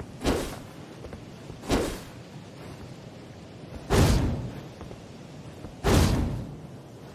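Four katana sword sound effects, each a sudden sharp hit that dies away within about half a second; the last two are the loudest.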